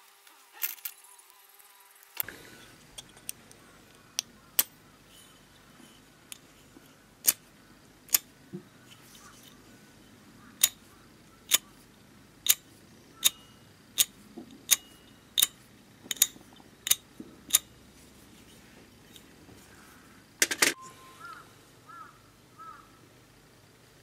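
Sharp metallic clicks from a 1930s Orlik 153 petrol lighter and its small metal parts being handled and worked. There are scattered clicks at first, then a run of about ten evenly spaced clicks, a little over one a second, in the middle. A quick cluster of clicks comes about three-quarters of the way through, followed by a few faint squeaks.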